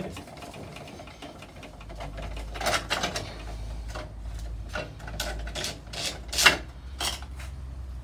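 Socket ratchet clicking rapidly as a 10 mm bolt holding a scooter's chrome front-wheel trim is undone, with several sharper metallic knocks as the bolt and trim come free, the loudest about six and a half seconds in.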